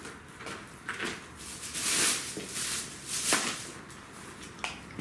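Rustling and scraping with a few sharp knocks as someone moves and resettles their seat.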